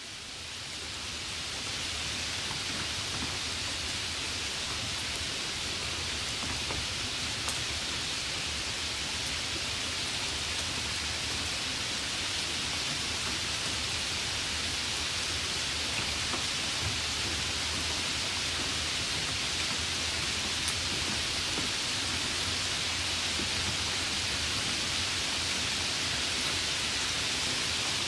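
Steady rain, a dense even hiss that fades in over the first second or two and then holds, with a few faint drop ticks.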